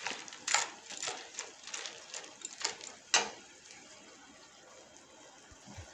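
Metal spoon stirring wet, salted raw sunflower seeds in a heavy frying pan: irregular scraping and clicking of spoon on pan and seeds for about three seconds. It ends with one louder clack as the spoon is laid in the pan, then the stirring stops.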